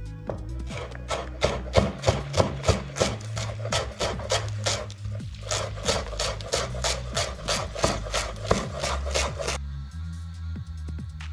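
Chef's knife chopping fresh herbs on a wooden cutting board: quick, even strokes about three or four a second, stopping suddenly near the end.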